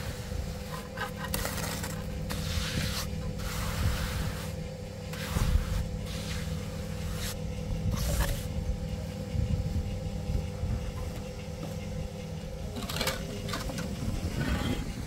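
A steady low mechanical hum with a few short, noisy scrapes over it.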